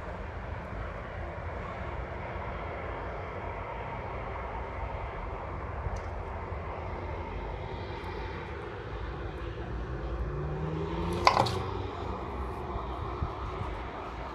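Steady low rumble of a distant jet aircraft passing high overhead, with one brief sharp noise about three-quarters of the way through.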